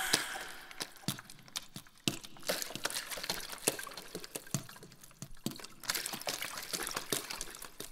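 Dripping water, with irregular drops and clicks several times a second, slowly fading.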